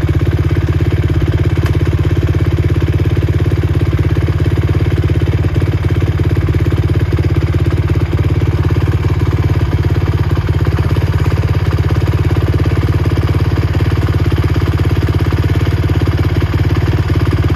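Honda TRX450 quad's single-cylinder four-stroke engine idling steadily, close and loud, with an even, rapid exhaust pulse and no revving.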